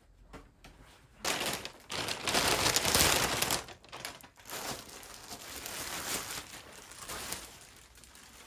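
Clear plastic packaging bag crinkling and rustling as folded clothes are unwrapped from it, loudest from about one to four seconds in, then softer.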